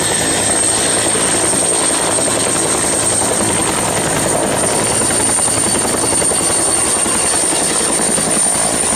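A helicopter running steadily, with a high thin whine held over a fast, dense rotor chop.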